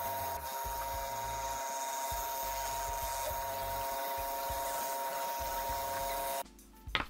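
Scroll saw running with a steady whine, its blade cutting through plywood that has a paper template glued on; the sound stops abruptly near the end.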